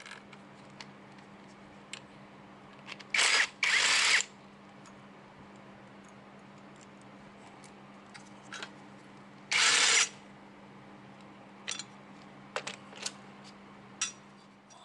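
Makita cordless driver run in three short bursts, spinning out bolts on a scooter engine's cooling-fan side: two close together about three seconds in, and one about ten seconds in. Between them there is a faint steady low hum and a few sharp clicks of parts and tools being handled near the end.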